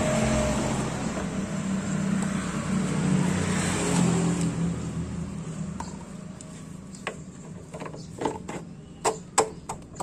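A road vehicle's noise swells and fades over the first half. Then come several sharp metallic clicks and knocks, closer together near the end, as the scooter's front wheel is worked into place between the fork and the disc brake caliper.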